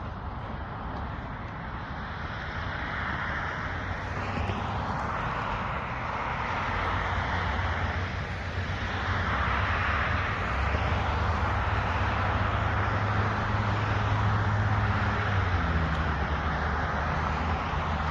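Gasoline chainsaw running steadily under load, its engine note shifting a little near the end.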